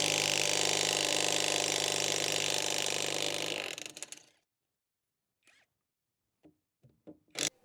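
DECERK 21-volt cordless impact wrench running under the trigger for about three and a half seconds, then winding down as the trigger is released. A few faint clicks follow near the end.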